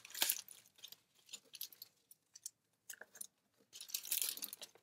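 Manila padded envelope being handled and worked open by hand: crinkling paper rustles about a quarter second in and again for the last second, with a quiet stretch between.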